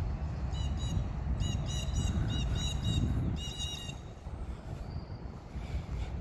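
A bird chirping in short repeated high notes, several in quick runs, over a steady low outdoor rumble.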